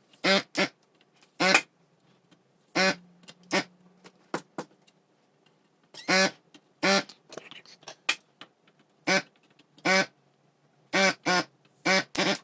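Hakko FR300 desoldering gun's vacuum pump buzzing in short pulls, about a dozen unevenly spaced quarter-second buzzes, as it sucks molten solder off the pads of a circuit board.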